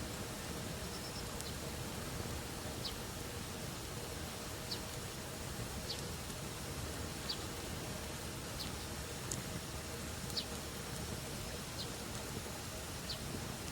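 Campfire burning with a steady low hiss and sparse sharp crackling pops from the wood, about ten of them, roughly one every second or so.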